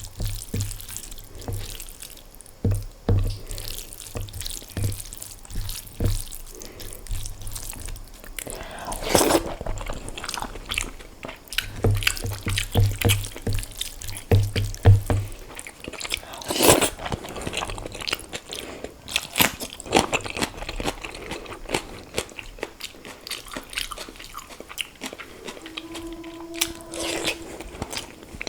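Close-miked eating of egg curry with rice and green chilli: chewing and crunching, with many wet mouth clicks and smacks. There is a brief hum near the end.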